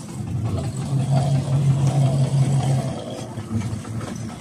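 Fishing boat's engine running, with its steady hum louder for about two seconds in the middle.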